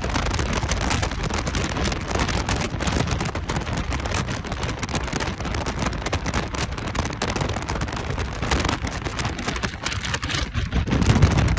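Wind and road noise from a moving motorcycle, with a dense crackle of rain on the microphone.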